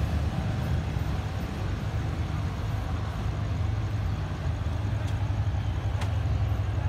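Steady low engine rumble at an even level, with a couple of faint clicks about five and six seconds in.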